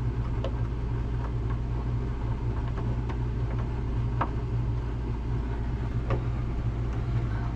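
Steady low mechanical hum throughout, with a few light scattered clicks and taps as screws are started back into the refrigerator door hinge by hand.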